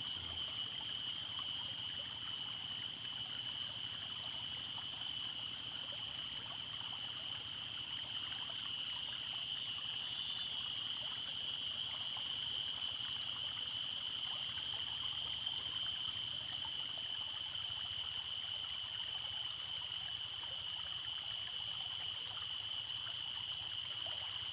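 A stream running steadily, with insects singing a constant high-pitched drone over the water.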